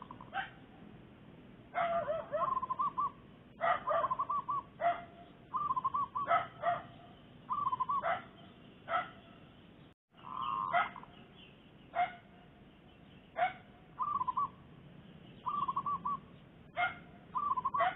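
A zebra dove cooing in short rolling trills, the decoy calling to draw a rival to the trap. A dog barks over it, short sharp barks coming every second or two, on and off.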